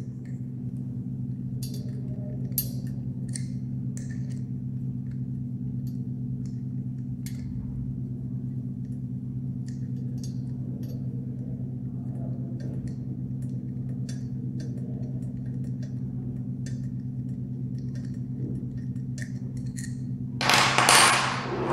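Faint metal clicks and ticks of an Allen key and screws being worked on the metal body and guard of an explosion-proof light fitting, over a steady low hum. Near the end comes a louder rush of noise lasting about a second.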